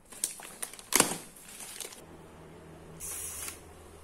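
Clear plastic curtain packaging crinkling and crackling as fingers peel it open, with one sharp crackle about a second in. About halfway it gives way to a steady low hum, with a brief soft hiss about three seconds in.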